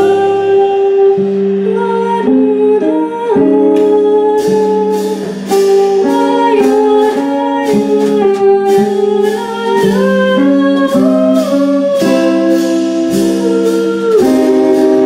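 Live band music: a woman singing a long-held, gliding melody into a microphone over electric bass, guitar and drums, with cymbal strikes coming in steadily from about four seconds in.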